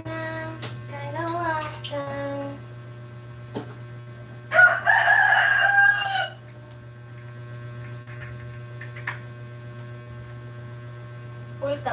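A rooster crows once about halfway through, one loud call lasting nearly two seconds, over a steady electrical hum.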